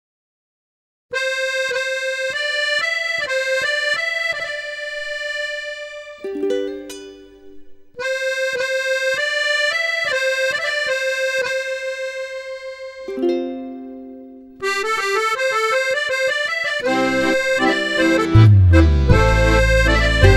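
Instrumental background music: a melody of held notes over a light ticking rhythm. It starts after about a second of silence, pauses twice, and a deep bass joins near the end.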